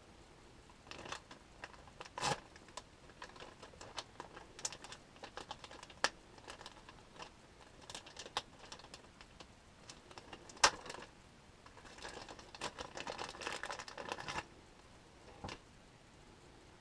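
Plastic water pipe and fittings being twisted and pulled apart by hand: scattered small clicks and taps, one sharper knock about ten and a half seconds in, and a quick run of small scrapes and clicks for about two seconds near the end.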